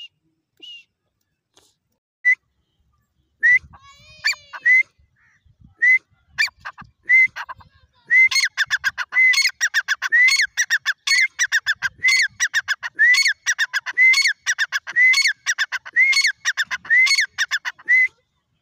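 Grey francolin (dakhni teetar) calling. A few scattered high notes build, about halfway through, into a fast, even run of loud repeated notes that goes on almost to the end.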